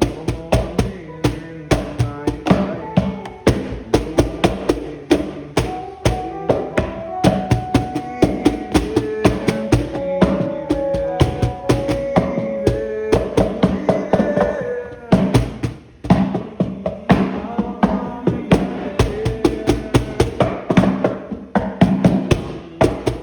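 Instrumental music with a steady drum-kit beat and held melodic notes over it.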